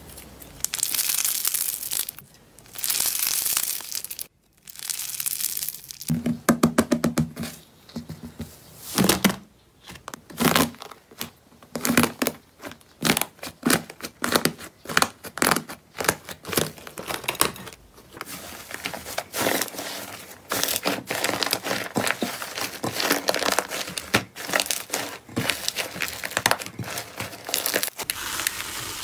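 Hands squeezing and pressing crunchy textured slime: two long crunching squeezes at first, then after a short pause a dense run of quick crackles, crinkles and pops as fingers break a glossy slime crust and press bubbly foam slime.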